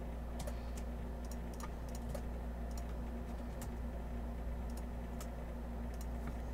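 Typing on a computer keyboard: a dozen or so separate keystrokes at an uneven pace, entering a column of single digits, over a steady low hum.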